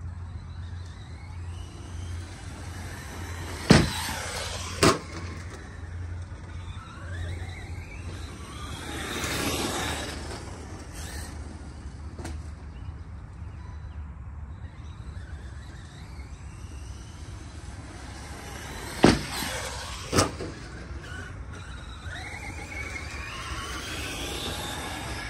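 ARRMA Mojave 4S RC short course truck's brushless electric motor whining up and down in pitch as the truck speeds up and slows. Twice there is a pair of sharp bangs about a second apart as the truck hits the wooden ramp and lands.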